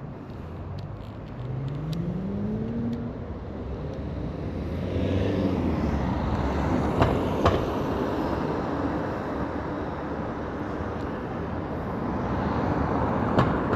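A car engine accelerating, its pitch rising over the first few seconds, then steady road traffic noise. A few sharp clicks around the middle and one near the end.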